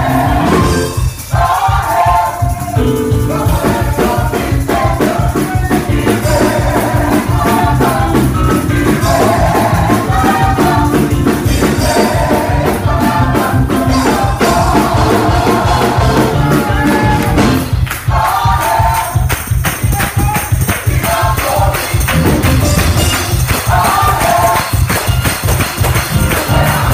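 Gospel vocal group singing with a live band, a tambourine shaken to the beat over a steady bass.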